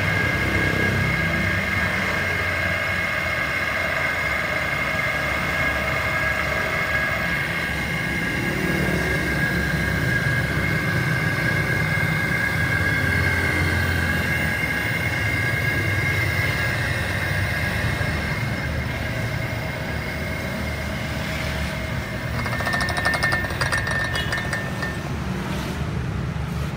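Electric hydraulic power unit running: the motor on top of the oil tank driving the pump with a steady high whine over a low hum. Near the end it grows a little louder, with some rattling.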